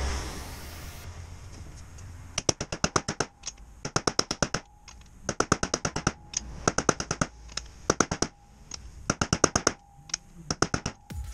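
Hammer blows on a steel driver seating a bearing race into a wheel hub: about seven quick runs of metal-on-metal taps, with a faint ring between some of them.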